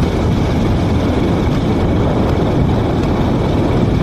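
Steady rumble of riding on a moving two-wheeler: wind buffeting the phone's microphone over engine and road noise.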